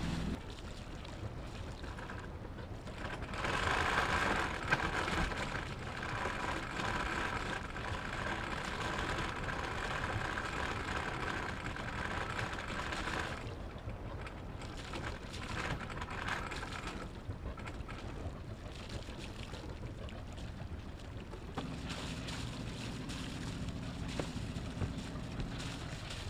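Small sailboat moving under power: wind on the microphone and water washing past the hull, with the low hum of its inboard engine joining near the end.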